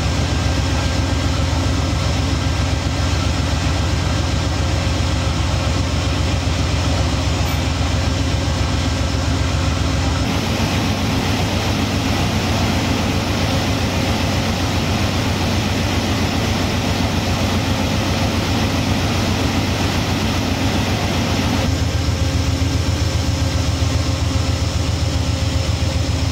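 GE Genesis (Dash 8-40BP) diesel-electric locomotive idling close by, a steady low engine drone that shifts abruptly twice.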